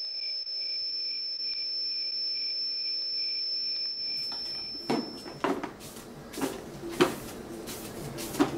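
A steady high-pitched insect trill, night ambience, ends about five seconds in. It gives way to a series of uneven brushing strokes of a broom sweeping a hard corridor floor.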